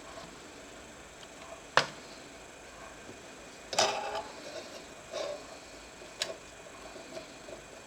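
Small hard parts being handled during laptop disassembly: a sharp click about two seconds in, a louder clatter around the middle, then a softer knock and another sharp click.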